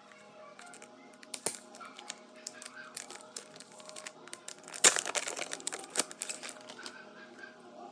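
Packaging being handled and opened: a run of crinkles, rustles and small clicks, with the densest, loudest crackle about five seconds in.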